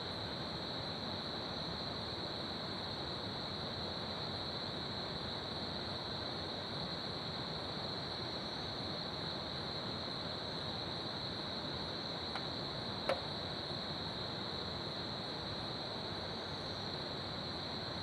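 Crickets chirping in a steady, continuous high-pitched chorus over the even rushing of a river. A single short click sounds about thirteen seconds in.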